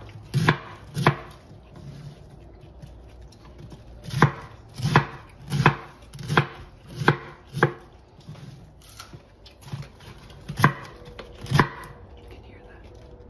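Chef's knife slicing through a cabbage wedge and knocking on a wooden cutting board, stroke by stroke. There are two cuts, then a pause, then a run of six about two-thirds of a second apart, and two more near the end.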